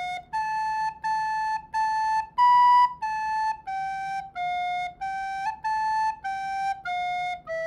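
Soprano recorder playing a slow melody of separate tongued notes: it walks up to a louder high note about two and a half seconds in, then steps back down. This is the opening phrase of a beginner's practice tune (D, F sharp, A, A, B, A, G, F sharp…).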